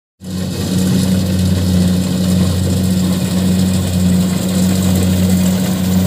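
Kubota DC-70 rice combine harvester running steadily under load as it cuts and threshes: a constant diesel engine drone with a dense rushing noise from the cutting and threshing works.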